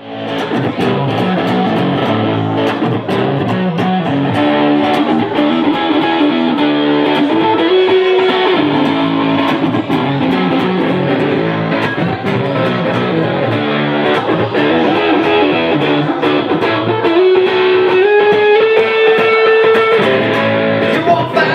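Live band playing a blues-rock instrumental intro. An electric guitar leads with long held notes that bend in pitch, over a backing band keeping a steady beat.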